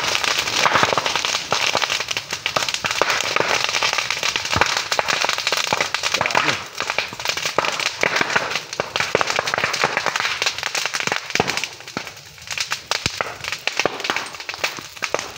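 Bamboo burning fiercely: a dense, continuous crackle with many sharp pops as the culms burst in the fire.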